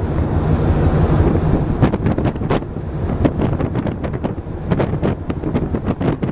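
Wind blowing hard across the microphone: a dense low rumble broken by frequent sharp pops.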